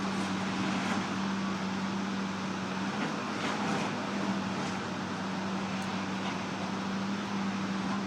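John Deere backhoe's diesel engine running steadily, a constant low hum with a few faint clicks and rattles over it.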